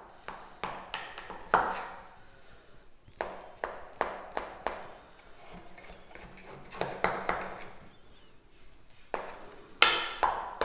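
Knife cutting a steamed noodle cake in a metal pan: the blade taps and scrapes on the pan in scattered, irregular clicks, the loudest near the end.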